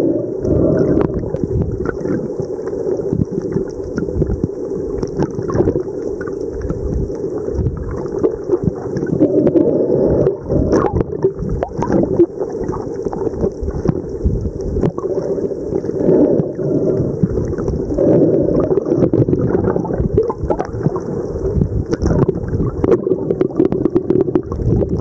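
Underwater ambient noise: a steady low rumble that swells and fades, with continual crackling and clicks over it.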